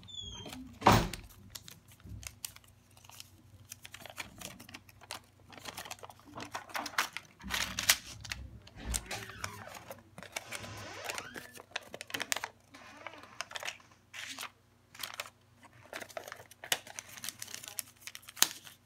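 Paper being folded and creased by hand, an irregular run of crinkles, rustles and light clicks, with one much louder sharp knock about a second in.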